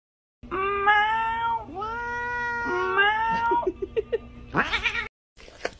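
Domestic cat meowing: three long, drawn-out meows one after another, then a few short sounds and a quick rising call before the sound cuts off suddenly.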